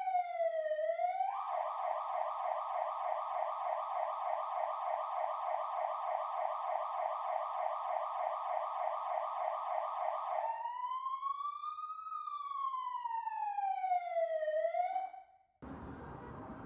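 Emergency-vehicle siren going through its cycles: a slow falling wail, then about nine seconds of rapid yelp, then a slow wail rising and falling again. It cuts off sharply about fifteen seconds in, and a steady, quieter rushing noise takes over near the end.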